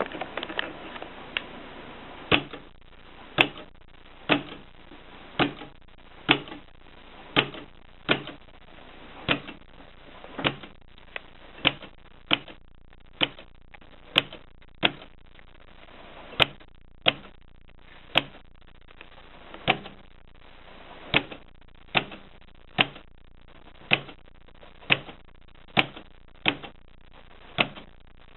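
AEG Mignon Model 4 index typewriter typing, one sharp key strike at a time at a slow, uneven pace of about one a second.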